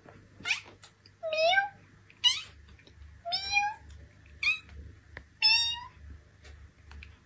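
Black cat meowing repeatedly up at its owner: about six short meows roughly a second apart, several rising in pitch.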